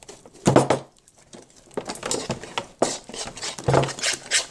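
Hands squeezing and kneading slime, making quick wet clicks and squelches, with two louder squelches about half a second in and near the end.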